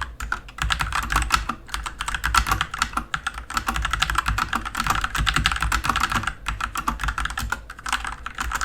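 Continuous fast typing on an AJAZZ K870T TKL mechanical keyboard with Huano Red linear switches in a matte, non-floating case: a steady clatter of keystrokes broken by a few brief pauses.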